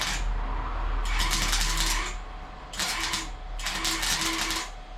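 Electric welding arc crackling in four short bursts, each under about a second, as tack welds are laid on thin sheet metal, with a steady low hum underneath.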